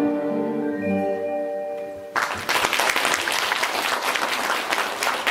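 The song's instrumental music ends on held chords, and about two seconds in an audience suddenly breaks into applause.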